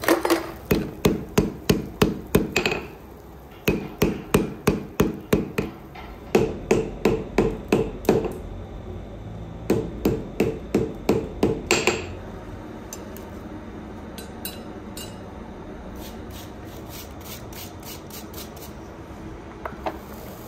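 Hand hammer striking a red-hot steel wire-rope billet on an anvil, about three ringing blows a second in four runs with short pauses between them. The hammering stops about twelve seconds in, leaving only a few faint clicks.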